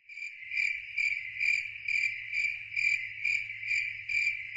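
Insect-like chirping trill, a steady high note that swells about twice a second, over a faint low hum.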